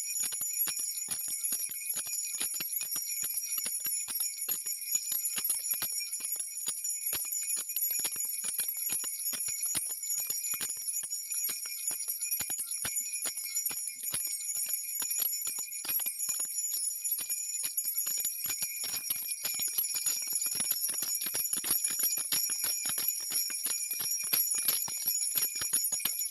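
Jingle bells jingling in a steady, rapid shake that runs on without a break, with many small metallic clinks a second over a held high ringing.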